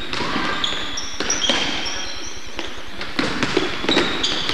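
A basketball bouncing a few times on a hardwood gym floor, with sneakers squeaking as players move.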